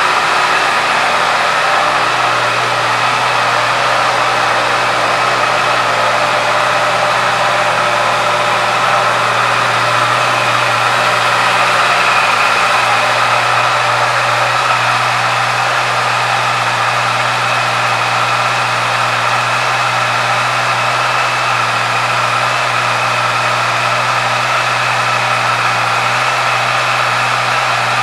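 Honda CBR650F's 649 cc inline-four engine idling steadily, with no revving.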